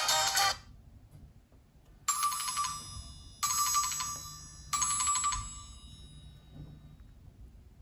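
Nokia C7-00 ringtone: the same bright, bell-like chime sounds three times, about a second and a half apart, each note ringing and fading away. The close of a denser tone cuts off about half a second in.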